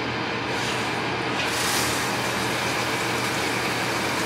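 Handheld shower head spraying cold water onto a Bernese mountain dog's coat while she is wetted down: a steady hiss that turns brighter about a second and a half in, over a steady low hum.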